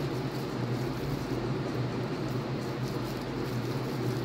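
Steady low hum with an even hiss, and faint soft squishes from hands pressing and shaping a moist bread, potato and egg kabab mixture.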